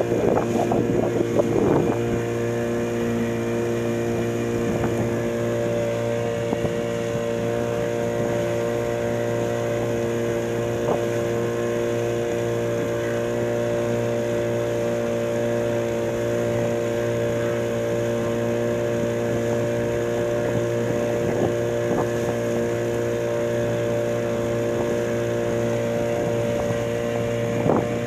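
Small open boat's outboard motor running at a steady speed under way, with some wind on the microphone.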